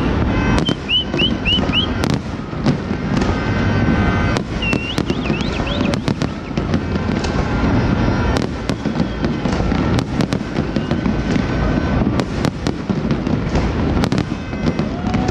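Aerial fireworks display: a dense, continuous rumble of shell bursts with many sharp bangs throughout. Short, high, wavering whistles come in quick runs just after the start and again about five seconds in.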